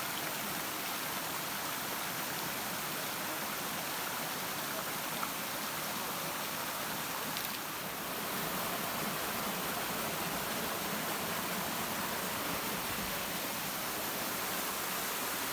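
Stream water rushing and splashing over rocks in a small cascade: a steady, even rush, with a brief dip about eight seconds in, after which it runs slightly louder.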